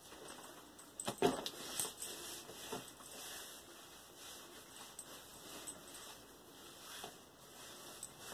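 Faint rubbing of a washcloth wiped over a freshly shaved leg to rinse it off, with a couple of sharp knocks about a second in.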